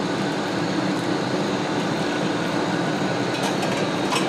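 Prawns deep-frying in a wok of very hot oil: a steady sizzle and bubbling over the constant roar of a high-powered wok burner. A few light clicks come near the end.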